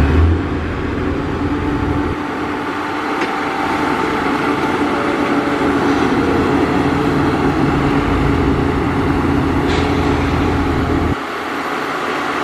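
Heavy diesel earthmoving machinery running steadily, its deep low rumble dropping away and returning as the load changes.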